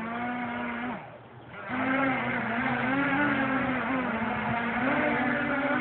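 Four Emax 2220 brushless motors with 8×4.5 propellers on a quadcopter run up for about a second, cut out, then spin up again about 1.7 seconds in and keep running, their whine wavering up and down in pitch.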